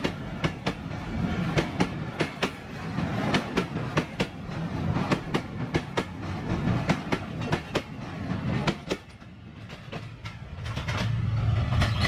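Passenger train coaches crossing a steel girder railway bridge, their wheels clicking rhythmically over the rail joints above a low rumble. The clicking fades about nine seconds in, and a steadier low rumble rises near the end.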